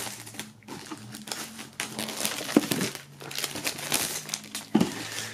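Clear plastic shrink-wrap film being peeled off a cardboard box and crumpled in the hand: irregular crinkling and crackling.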